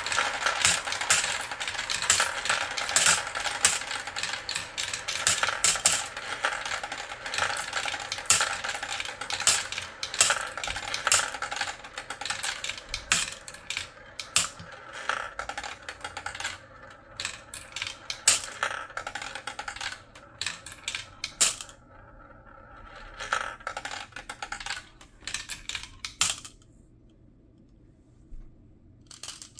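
Glass marbles clicking and clattering as they roll and drop through a plastic marble run. There is a dense, busy rattle at first, which thins to scattered clicks in the second half as the last marbles finish, then dies away near the end.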